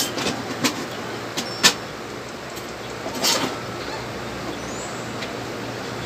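Paper and cardboard being handled: light taps and clicks as a cut piece of construction paper is pressed onto a cardboard puppet, with one sharper tap about one and a half seconds in and a brief paper rustle about three seconds in, over a steady low hum.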